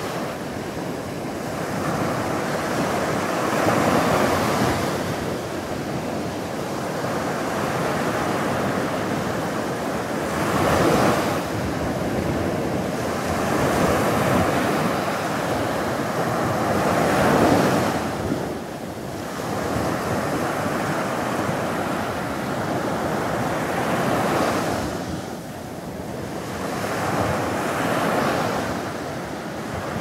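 Small sea waves breaking and washing up a sandy beach. The surf swells and eases every few seconds.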